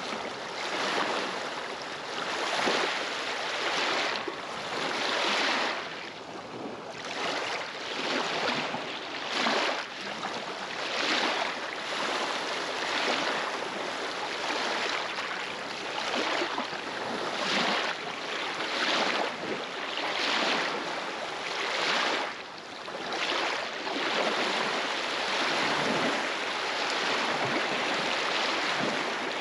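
Small waves on a glacial lake lapping and breaking against the shoreline, a fresh splash and wash every second or so.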